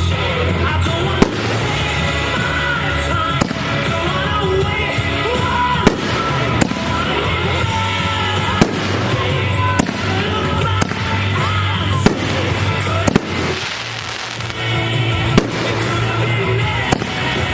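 Aerial fireworks going off in sharp bangs every second or two over loud music with a heavy, steady bass.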